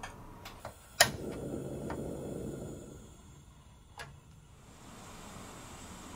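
Portable cassette gas stove being lit: a couple of light clicks as the knob is turned, then a sharp igniter click about a second in and a rush of gas as the burner catches, fading after a couple of seconds. Another single click about four seconds in.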